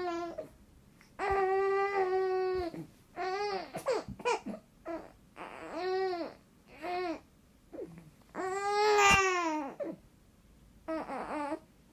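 A baby fussing: a string of short, whiny cries and babbling sounds that bend up and down in pitch, with quiet gaps between them. The longest and loudest comes about eight to ten seconds in.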